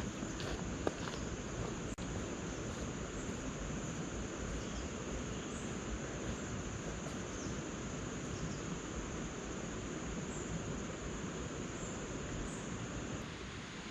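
Rainforest insects trilling in one steady high-pitched tone that stops shortly before the end, over a constant background hiss, with a few faint high chirps.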